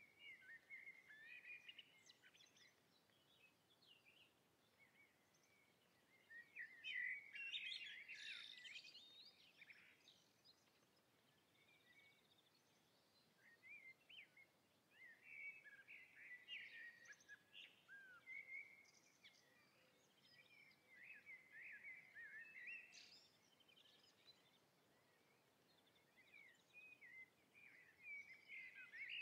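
Faint songbird chirping and twittering in several short bouts, with quiet gaps between them.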